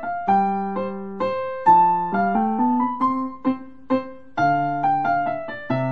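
Kawai CA17 digital piano played on its Shigeru Kawai SK grand-piano voice: a slow melody of struck notes over sustained chords, with deeper bass notes coming in about four and a half seconds in.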